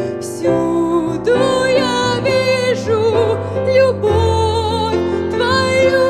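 A woman singing a Christian song in Russian, holding notes with vibrato, accompanied by chords on a Kurzweil digital piano.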